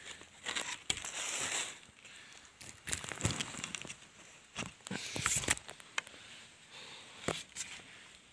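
Irregular rustling and scraping of a climber going up a bamboo sigai climbing pole lashed to a tree trunk: hands, body and gear rubbing on bamboo and bark and brushing leaves, with a few sharp knocks.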